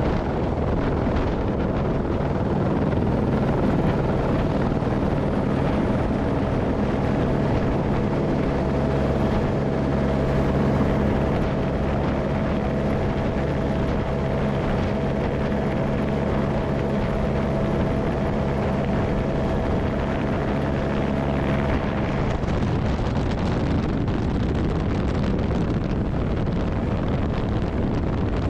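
Airbus H125 (Esquilo B3e) helicopter running, its single turboshaft engine and main rotor giving a loud, steady hum under a higher steady whine. About two-thirds of the way through, the steady tones drop away and leave an even rushing noise.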